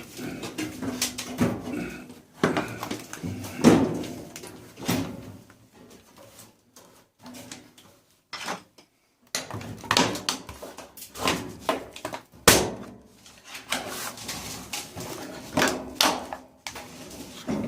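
Irregular clanks and knocks of sheet steel from a clothes dryer being pulled apart and handled for scrap, some strikes ringing briefly.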